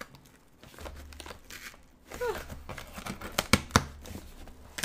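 Cardboard shipping box being torn open by hand, in a series of short, sharp rips and crinkles, the loudest a few quick rips about three and a half seconds in.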